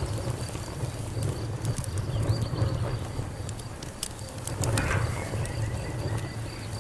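Wood fire crackling, with scattered sharp pops and snaps over a low, steady rumble of the burning.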